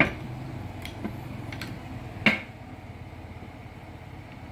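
A few sharp, isolated clicks of steel ratchets knocking against one another as they are handled. The loudest comes a little after two seconds in, over a low steady hum.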